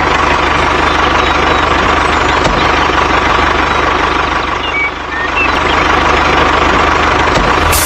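Heavy vehicle engine running steadily at idle, with an even low rumble.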